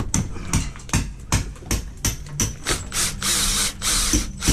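Cordless drill-driver at work on a timber door lining: a string of sharp clicks and knocks a few times a second, then the drill running briefly about three seconds in as a screw is driven into the wood.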